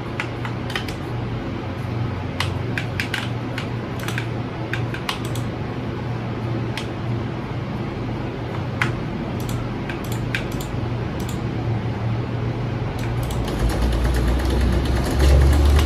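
Keystrokes on a Redragon Kumara mechanical keyboard fitted with AKKO blue switches: irregular clicks, some in quick runs, as keys are pressed during gameplay, with a steady low hum behind them.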